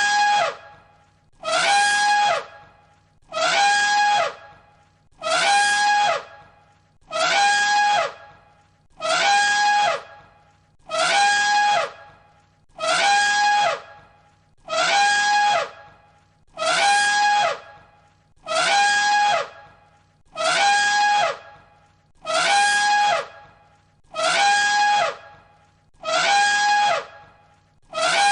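Elephant trumpeting: the same short, high, brassy call repeated over and over at a steady pace, about one every two seconds, each call ending in a falling tail.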